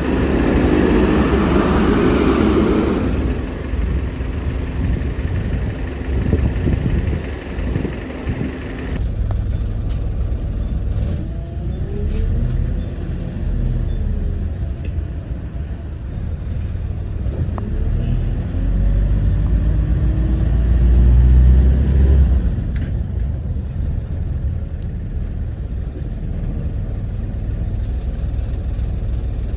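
Optare Solo Versa bus's diesel engine on the move: a loud hiss of air at the start, then the engine pulling away with its pitch rising and falling, loudest a little past two-thirds of the way through, before settling back to a steadier, quieter run.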